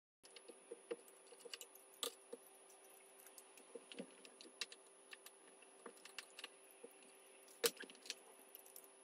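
Small Torx screwdriver taking the screws out of a laptop's aluminium bottom plate: light, irregular clicks and ticks of the driver tip and screws against the metal case, with one sharper click about three-quarters of the way through.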